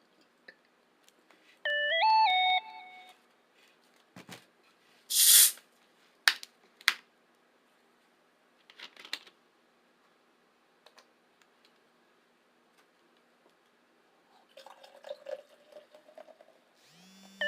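A short electronic jingle of a few stepped notes plays about two seconds in and starts again at the very end. Between them come eating noises: a loud crunch about five seconds in, then a few sharp clicks and softer scattered noises.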